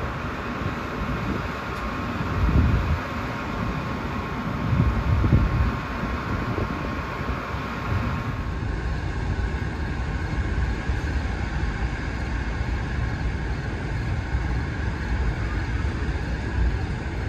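A diesel-electric passenger locomotive idling at a station, with a steady low rumble, a couple of low surges and a thin steady whine. About eight seconds in the whine drops away and a softer steady hum of the standing train remains.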